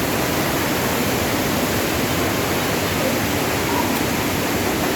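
Steady, loud rushing noise of water from the flood.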